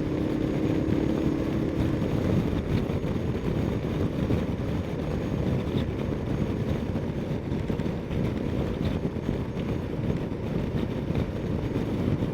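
Ducati Multistrada 1260S's V-twin engine running steadily under way, mixed with wind and road noise.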